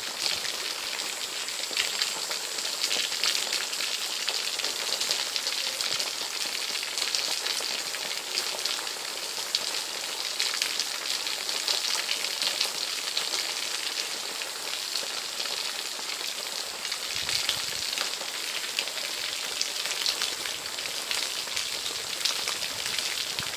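Water pouring from a split-bamboo spout onto a person's head and shoulders and spattering on the body and the ground: a steady hiss full of small splashes.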